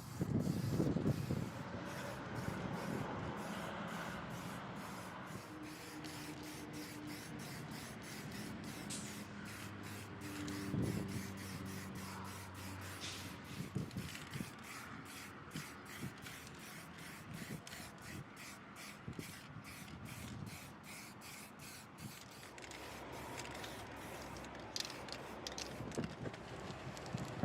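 Paint spray gun hissing as paint is sprayed onto the bus's wheel rims, with many faint clicks and taps.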